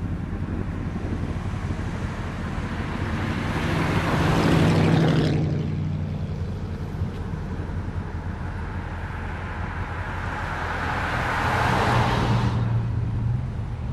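Two classic Mopar cars driving past one after the other, each one's engine and tyre noise swelling as it nears and dropping away as it goes by, about five seconds in and again near the end.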